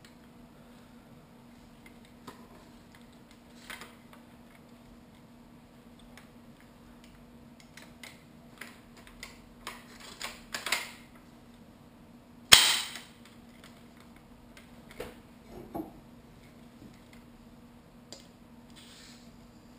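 A&K SVD airsoft sniper replica with a Core green gas conversion kit being handled and cycled: a series of mechanical clicks and knocks, then one loud sharp gas shot about two-thirds of the way through, followed by a few more clicks and a brief hiss near the end.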